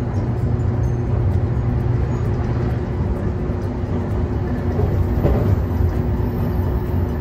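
JR Kyushu 813 series electric train running, heard from inside the passenger car: a steady low rumble of wheels on the rails with a constant hum. A brief louder rushing noise comes about five seconds in.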